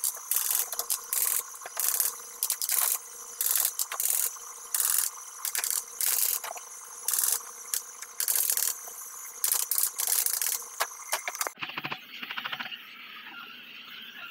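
Repeated scraping strokes on wood, like hand sanding or rasping, about one or two strokes a second. Near the end the strokes stop and a different, lower, rapidly pulsing rasp takes over.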